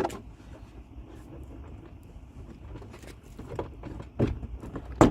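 Hands handling a car's plastic door trim panel: scattered knocks and clicks of plastic, the loudest near the end, over a low steady rumble.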